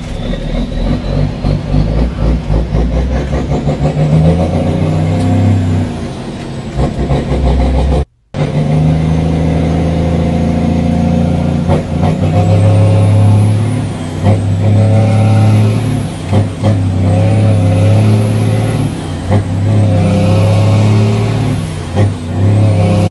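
Cummins N14 straight-six diesel of a heavy truck running under load, heard from inside the cab, its revs climbing and falling away as the driver works through the gears. A faint high whine rises and falls with the revs. The sound cuts out for a moment about eight seconds in.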